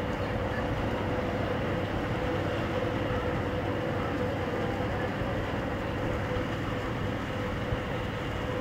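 Steady mechanical drone with a constant hum, unchanging throughout.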